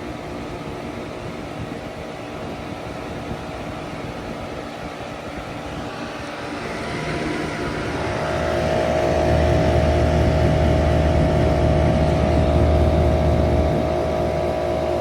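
Side-discharge heat pump outdoor unit running in cooling mode: a steady mechanical hum of compressor and fan, with several fixed tones. About eight seconds in it grows louder, with a strong low hum and a prominent mid-pitched tone.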